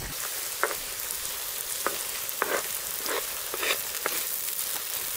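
Chopped onions and peppers sizzling in a wide, shallow black metal pan, a steady hiss. A wooden spatula scrapes across the pan about six or seven times as they are stirred.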